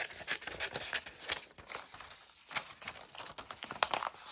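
A rapid, irregular run of short, sharp clicks and taps, some louder than others.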